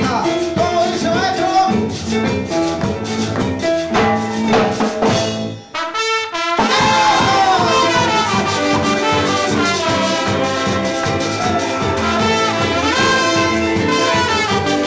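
Recorded band music led by a trumpet and brass section playing melody lines over a steady beat. About six seconds in the music drops out briefly, then the full band comes back in.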